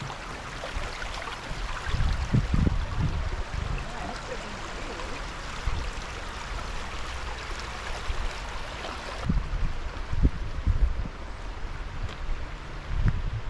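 Creek water rushing steadily, with gusts of wind buffeting the microphone several times. The rushing drops off noticeably about nine seconds in.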